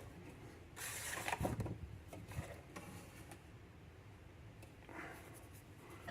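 Handling noise on a workbench: a rustle with a few small knocks about a second in, then softer rustles and taps.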